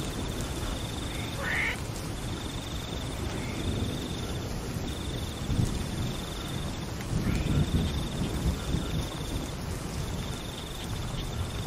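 Steady rain falling on a grassy field, with an animal's high pulsed trill repeating in bouts of one to two seconds and a few short calls. Low rumbling swells around the middle.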